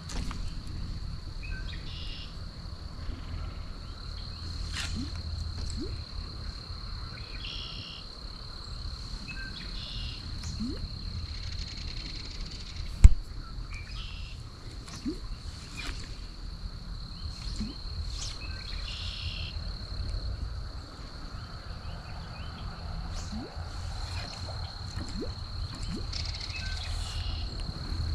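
Insects trilling in a steady high-pitched drone over a low outdoor rumble, with short chirps and scattered faint clicks. One sharp knock stands out about halfway through.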